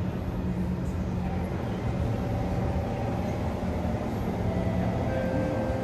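Singapore MRT East West Line train running between stations, heard from inside the carriage: a steady low rumble of wheels and running gear. Faint motor whine tones come in a couple of seconds in and grow a little clearer near the end.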